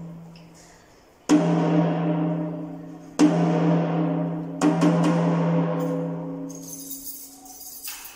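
PDP rack tom struck with a drumstick while held off its mount, three hits with the last a quick double, each ringing at the same clear pitch and fading over about two seconds: the drum is being checked for pitch while being tuned. A light rattle of handling comes near the end.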